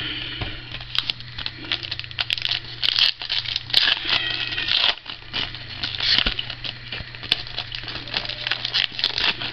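Foil wrapper of a trading-card pack crinkling and tearing as it is opened and handled by hand, an irregular run of crackles and small clicks.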